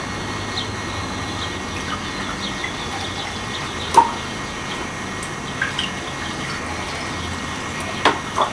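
Water being poured into drinking glasses, with a few sharp clinks, the loudest about four seconds in and two more near the end.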